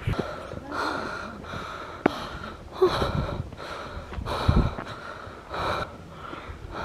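A person breathing audibly close to the microphone, a breath about every second, with a couple of low thumps about three and four and a half seconds in.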